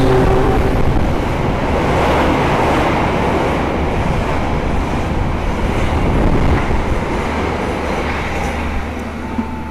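Express passenger train's coaches passing at speed on the adjacent track: a steady, loud rush of steel wheels on rail and moving air. It fades over the last few seconds.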